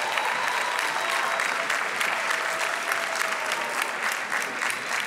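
Large audience applauding: many hands clapping together in a dense, steady patter.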